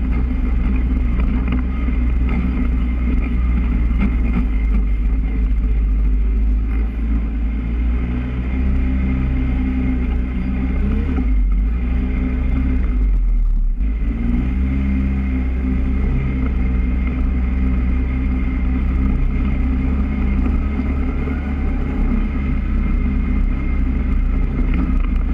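Polaris ATV engine running while the quad drives across rough grass, with a steady low rumble. About halfway through the engine eases off for a couple of seconds, then picks up again.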